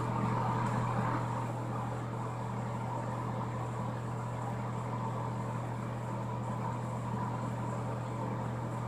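Steady low hum with an even hiss, typical of a bathroom ceiling exhaust fan running.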